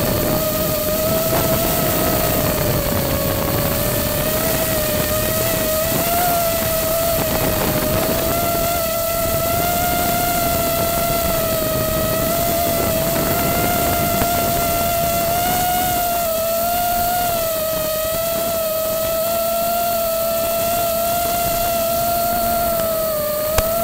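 FPV quadcopter's motors running in flight: a steady buzzing whine whose pitch wavers slightly with the throttle, over a hiss.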